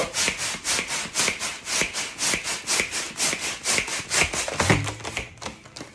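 Foil balloon being inflated with a hand pump: quick, even pumping strokes, about four puffs of air a second, with the foil crinkling. The pumping stops shortly before the end.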